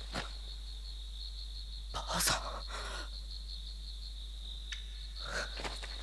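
A young man sobbing in grief, with short gasping, breathy sobs about two seconds in and again near the end, over steady chirping of crickets.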